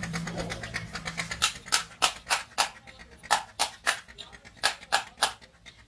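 Sharp metallic clicks from a greasy truck wheel roller bearing being worked by hand. They come in three short runs of four or five clicks, about three to four a second.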